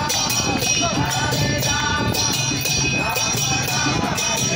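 Devotional group singing (kirtan) accompanied by small metal hand cymbals struck in a steady beat.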